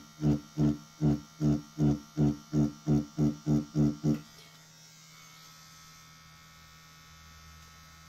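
Rotary pen tattoo machine buzzing in even pulses, about three a second, as the needle works shading into synthetic practice skin. The pulses stop about four seconds in, leaving a faint steady hum.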